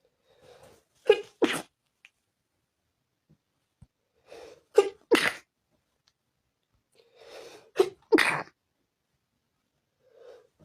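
A person sneezing three times, about three seconds apart, each sneeze preceded by a short breathy catch. It is part of a sneezing fit set off by dust.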